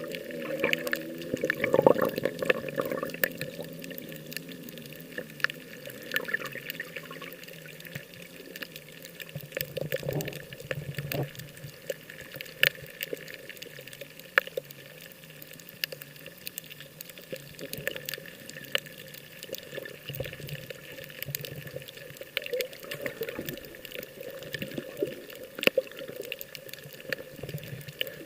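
Water sloshing and splashing with many small sharp clicks and crackles, over a faint low wavering hum.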